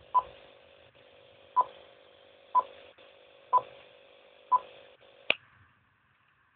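Radio scanner's speaker: short single-pitch beeps about once a second over a faint open-channel hiss, then a sharp click about five seconds in, after which the hiss cuts off.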